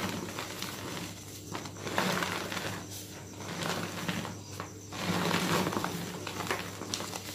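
Dry gym chalk and cornstarch crumbles squeezed and crushed in bare hands, crunching and crackling in repeated handfuls about every one to two seconds.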